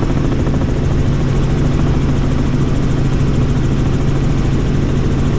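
Bell helicopter in flight, heard from inside the cabin: a loud, steady drone of engine and rotors with a constant low hum that does not change.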